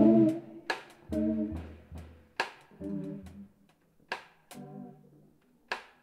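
Sparse live music on electric bass and drum kit: short bass notes between scattered, irregular drum and cymbal hits with gaps of near quiet.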